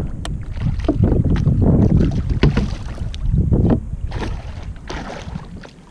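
Water sloshing against a plastic kayak hull and wind buffeting the microphone, in irregular low surges, with scattered sharp knocks.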